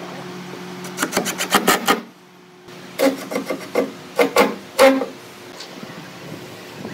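Cordless impact driver driving screws into a pine boat frame: a steady motor hum, then runs of sharp clattering knocks about a second in and again from about three to five seconds in.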